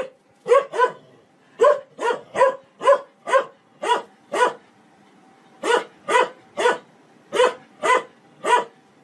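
A large shepherd-type dog barking sharply and repeatedly, about sixteen loud barks in quick runs with one short pause partway through, aimed at a washing machine with its drum turning.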